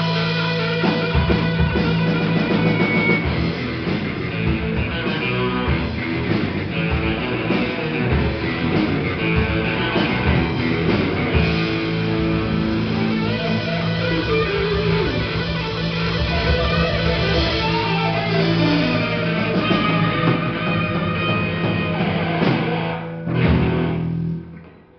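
Rock band playing live: two electric guitars over bass guitar and drum kit. The piece finishes about two seconds before the end on a final struck chord and cymbal hit that rings out and fades.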